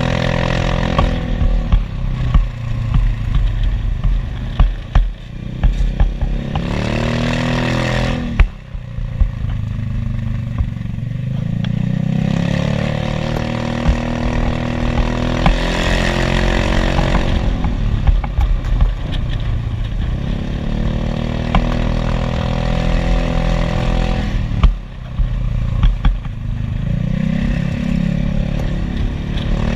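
Yamaha maxi-scooter engine running on the move, its pitch rising and falling with the throttle, with wind rushing over the microphone. Twice the engine note drops briefly as the throttle is closed, about a third of the way in and again near the end.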